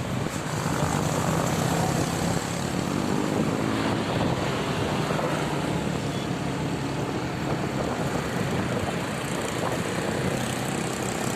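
Bus engine running with a steady low drone.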